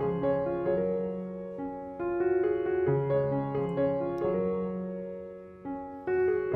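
Background piano music: a slow, gentle tune of single notes and chords over a low bass, each note struck and left to fade.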